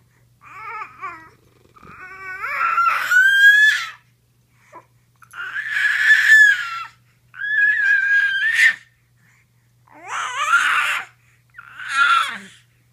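A seven-month-old baby vocalizing: about six high-pitched, drawn-out calls, each a second or two long, some rising in pitch.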